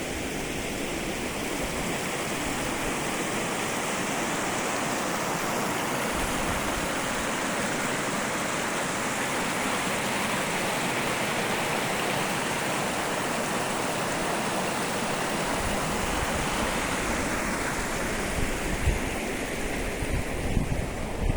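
Steady rushing water, like a stream or small waterfall. From about three-quarters of the way through, gusts of wind buffet the microphone.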